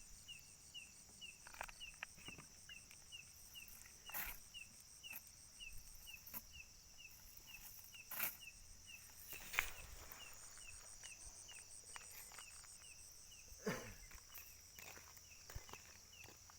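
Night insect chorus: a steady high buzz with a short chirp repeating about twice a second. A few sharp clicks and knocks sound over it, the loudest about ten seconds in and another near fourteen seconds.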